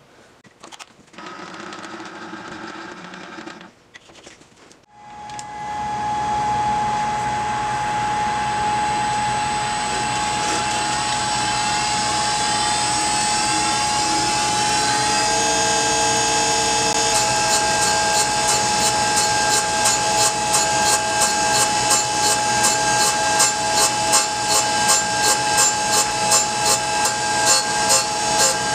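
Tool-and-cutter grinder starting about five seconds in and running steadily with a whine, its grinding wheel then cutting the end of a parting-tool blade. In the second half the sound pulses regularly about twice a second as the blade is worked across the wheel.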